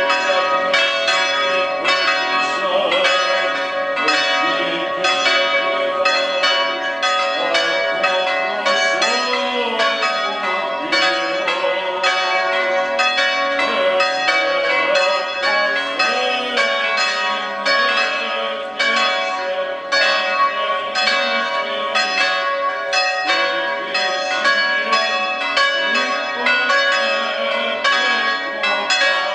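Russian Orthodox church bells rung together in a continuous festive peal: several quick strikes a second from the smaller bells over the steady, sustained tones of the larger bells.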